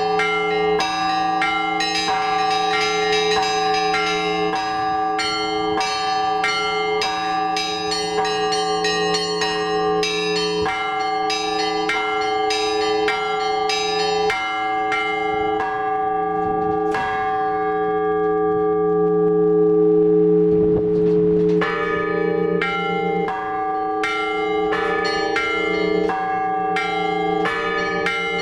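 Orthodox church bells rung in a zvon: quick, rhythmic strikes of the small bells over the steady ringing of the larger bells. Past the middle the small bells thin out for a few seconds while the big bells keep sounding, then the full pattern picks up again.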